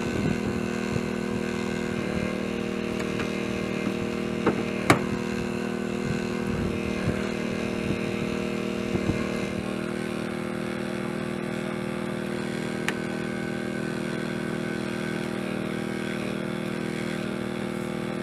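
An engine running at a steady speed, with a few sharp clicks or knocks over it, the loudest about five seconds in.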